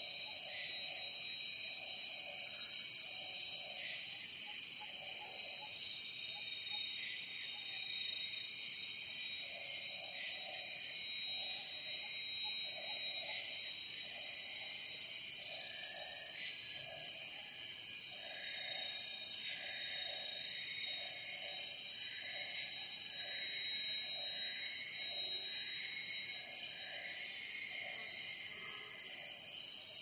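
Tropical rainforest chorus: insects and cicadas shrill steadily at several high pitches. Under them a low hooting call repeats about once a second. In the middle a bird adds a run of short, higher notes about a second apart.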